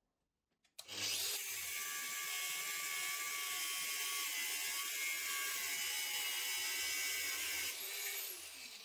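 Angle grinder with an abrasive cut-off disc switched on about a second in, spinning up with a quick rising whine, then grinding steadily through a metal rod. Near the end it is switched off and winds down with a falling whine.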